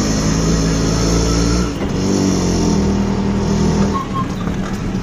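Auto rickshaw's single-cylinder engine running as it drives, heard from inside the open cabin, its engine note changing about two seconds in.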